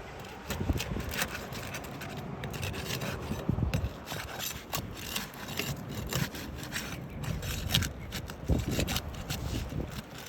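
Rubbing and scraping on roof shingles, a tool or hand working them loose, with many short irregular scrapes and clicks.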